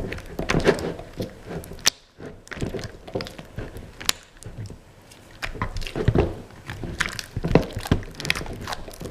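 Spatula stirring thick, freshly activated glue slime in a bowl: irregular sticky squelches and knocks of the spatula against the bowl, with a short lull about two seconds in.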